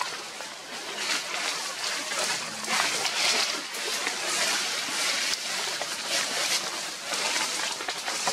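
A macaque eating a ripe mango at close range: wet chewing and slurping, a steady stream of small crackles and smacks.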